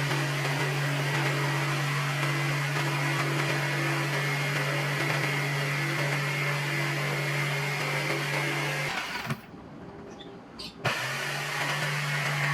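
A motor-driven power tool running steadily with a constant hum and a wide hiss. It cuts out suddenly about nine seconds in and starts again about a second and a half later.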